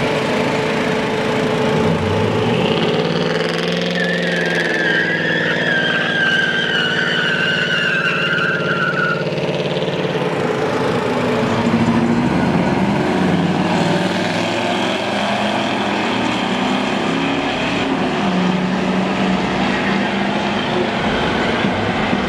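Ford Crown Victoria's swapped-in 5.4-litre V8 revving up and running at a drag-strip launch. A high wavering squeal sounds for several seconds near the start, and there is more revving later on.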